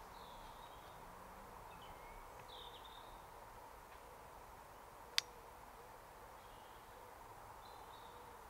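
A single sharp crack about five seconds in, the shot of a BRK Brocock PCP air rifle fired at a squirrel on a feeder; it is by far the loudest sound. Small birds chirp faintly a few times around it.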